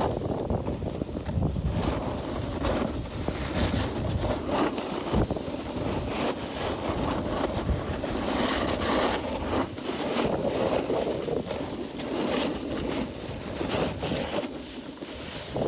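Wind rushing over a phone's microphone at riding speed, mixed with the scrape and hiss of snowboard edges carving across packed snow, rising and falling with each turn.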